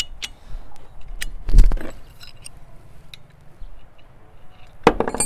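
Metal clinks and clatter of a stacked dado blade set, washer and arbor nut being fitted by hand onto a radial arm saw's arbor, with a louder knock about one and a half seconds in.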